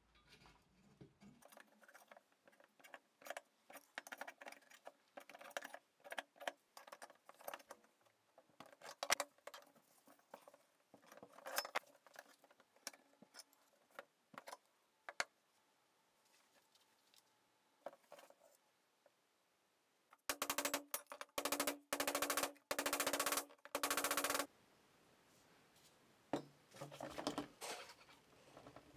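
Metal clinks and taps as tabs cut into a square steel tube are bent over and knocked down with hand tools. About two-thirds of the way through comes a run of rapid strikes on the tube that makes it ring, with a shorter cluster of taps near the end.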